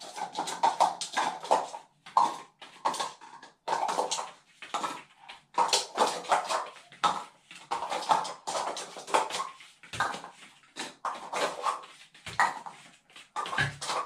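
Hard plastic stacking cups clattering and knocking together as the dog picks them up and hands them over to be stacked: many irregular sharp clacks.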